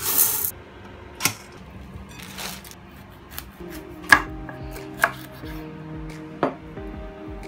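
Chef's knife chopping broccoli on a wooden cutting board: several sharp knocks spaced irregularly, over soft background music. A brief hiss at the very start.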